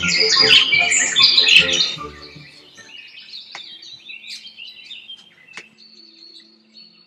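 Many small birds chirping and chattering loudly together for about two seconds, then the sound drops to quieter, scattered birdsong with soft, steady music tones underneath.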